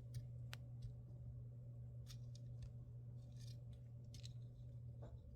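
Faint, scattered small plastic clicks and ticks from cable connectors and wires being handled and plugged into a laser engraver, over a steady low hum.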